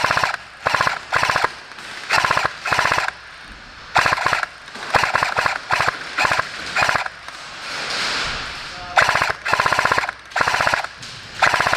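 Airsoft M249 Mk46 electric support gun firing repeated short full-auto bursts of well under a second each, every burst a fast rattle of shots with a steady motor whine under it; there is a pause of about two seconds past the middle.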